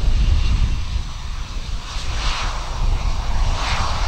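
Jet engines of a Batik Air Airbus A320 running on the runway: a low rumble under a jet hiss that swells and wavers in the second half, then cuts off suddenly near the end.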